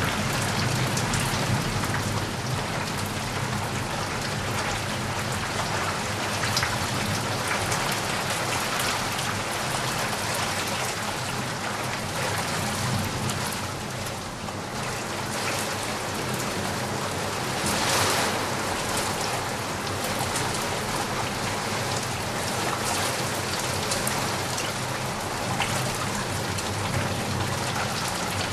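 Steady rain, with single drops knocking just outside a window. There is a brief louder splash about two thirds of the way through.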